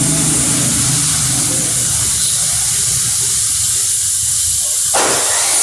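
Steady, loud hissing of a machine cutting steel plate, with an abrupt change in the noise about five seconds in.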